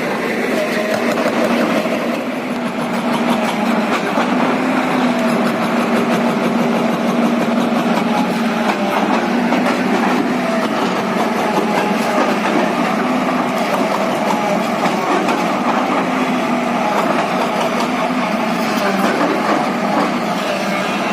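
JCB JS215 tracked excavator's diesel engine running steadily under working load, a constant hum whose pitch wavers slightly.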